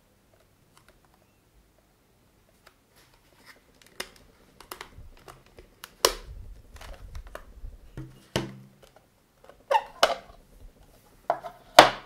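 Plastic clicks and knocks as a handheld 12 V car vacuum cleaner is handled and taken apart, its dust cup and pleated filter pulled off. Sharp clicks start about four seconds in, with the loudest about halfway through and another cluster near the end.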